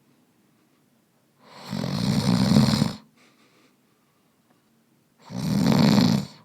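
A man snoring loudly: two long snores, the first starting about a second and a half in and the second near the end, with quiet between them.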